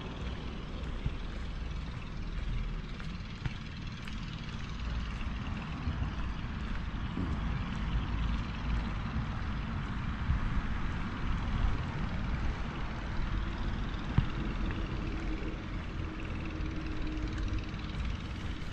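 Steady low rumble of wind on the microphone and wheels rolling over paving while riding along a path, with one sharp knock about fourteen seconds in and a faint steady tone for a couple of seconds after it.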